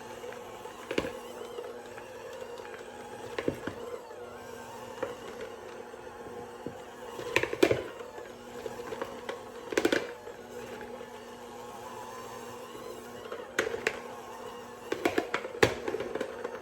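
Dough being worked by hand in a kitchen: irregular knocks and thumps, the loudest about halfway through, over a steady low hum.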